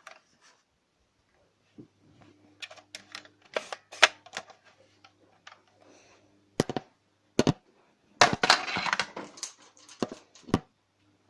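Toy gun being handled and fired: a scatter of sharp plastic clicks and knocks, with a dense rattling run of clicks just after eight seconds, over a faint steady hum.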